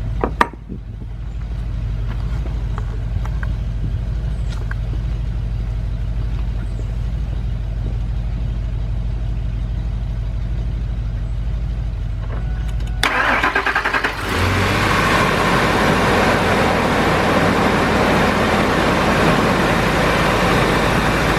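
A steady low hum, then about 13 seconds in the 1999 Ford Expedition's V8 engine is started and keeps running at a steady idle.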